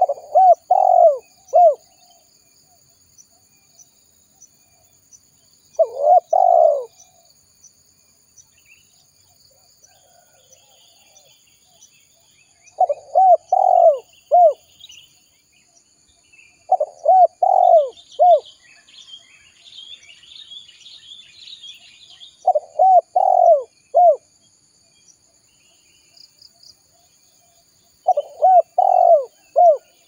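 Spotted dove singing: six phrases of three or four quick, clear coos, a phrase every four to six seconds. A faint steady insect buzz runs underneath, with faint high chirping about two-thirds of the way through.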